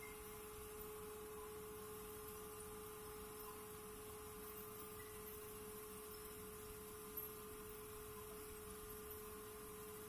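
A faint, steady hum on a single pitch, with no sawing or other sound standing out.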